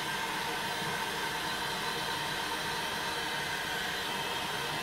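Electric heat gun running steadily, its fan blowing hot air with an even hiss and a faint steady whine, as it heats a polyethylene welding strip.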